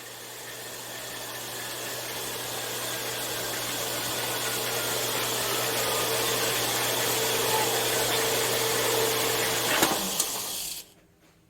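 Power saw cutting through aluminum bar stock: a steady motor hum under a hissing cutting noise that grows louder as the cut goes on. A knock sounds near the end, then the saw stops suddenly.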